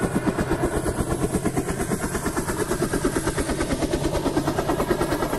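Helicopter rotor chop: a steady, even beat of about five blade pulses a second with a low engine drone beneath.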